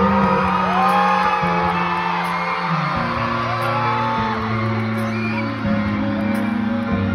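Live band playing a slow pop ballad passage, with sustained keyboard and bass notes shifting every second or two, heard from the arena audience. Fans' high whoops and screams rise and fall over the music.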